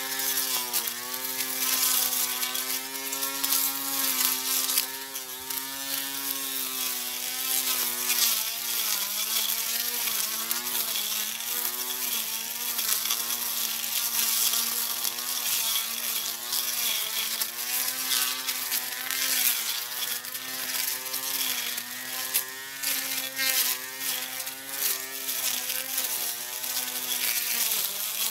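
Portable electric grass cutter's motor running with a steady buzzing whine over a rough hiss. Its pitch wavers and dips now and then, most deeply about a third of the way in and again near the end, as it works through the grass.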